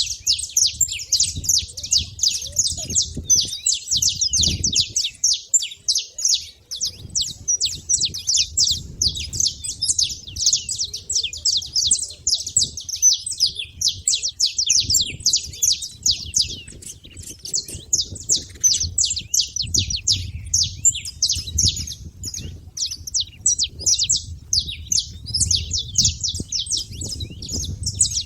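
Saffron finches chirping at a feeding spot: a dense, unbroken stream of rapid, overlapping short high chirps, with a low irregular rumble underneath.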